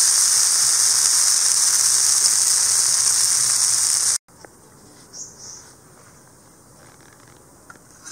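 Dosa sizzling on a hot tawa, a loud, steady hiss that cuts off abruptly about four seconds in. After it comes faint outdoor background with a brief high chirp.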